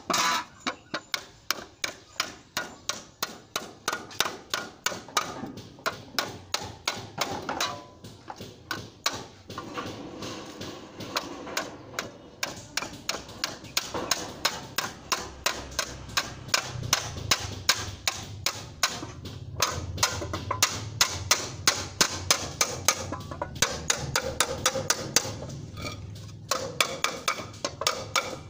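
Hammer striking a thin metal gutter sheet laid on a wooden board: a steady run of sharp blows, about three a second, with a few short breaks.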